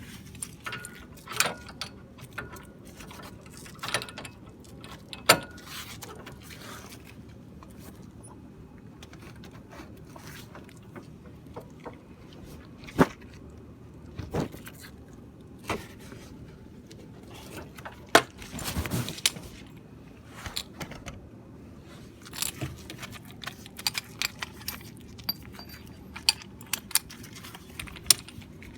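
Scattered metallic clinks, knocks and short scrapes of hand tools and brake parts being handled during a brake pad change, with a longer rattling clatter about two-thirds of the way through, over a faint steady hum.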